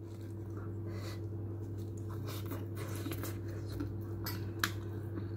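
Faint eating sounds: chewing and the soft crackle and rustle of a shawarma wrap being pulled apart, with a few small scattered clicks, over a steady low hum.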